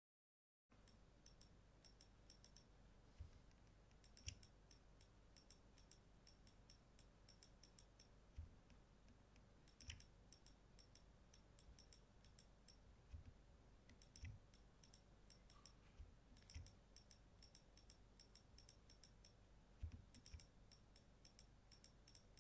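Faint, irregular computer mouse clicks, often in quick runs of several, over a low steady hum of room tone.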